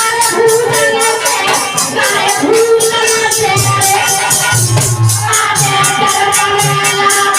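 Indian folk devotional music (a jas) with a fast, even jingling percussion beat, about four to five strokes a second, over sustained melody lines and low drum thuds.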